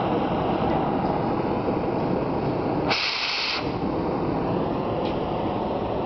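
Acetylene torch flame burning with a steady hiss, with a brief higher hiss about halfway through.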